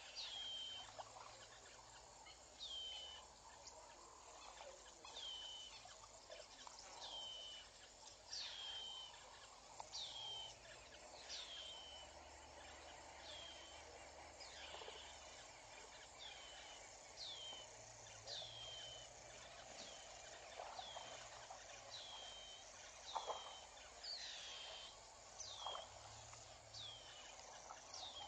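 A bird calling over and over, a short whistled note that slides down in pitch, about one call every second and a half, over a faint bush ambience. A couple of soft clicks sound late on.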